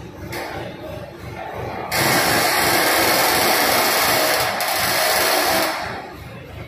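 Loud, steady rushing hiss of a power tool working metal, starting suddenly about two seconds in and stopping near six seconds, with a brief dip midway. A low rumble runs underneath.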